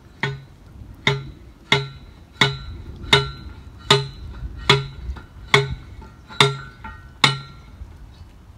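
A single ringing note struck ten times at an even pace, about one strike every 0.8 seconds, each dying away quickly, over a steady low rumble.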